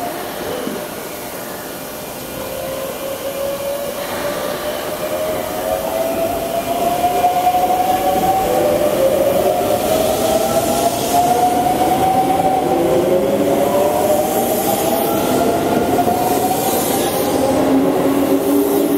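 Keisei 3700 series electric train pulling away and picking up speed, its motors' inverter whining in a series of rising tones, over the rumble of the cars rolling by. The sound grows louder about six seconds in as the cars gather speed past the platform.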